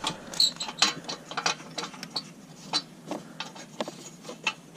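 Irregular metallic clicks and clinks as a dirt bike's exhaust pipe and its fittings are worked into place against the cylinder head, about a dozen sharp taps, a few ringing briefly.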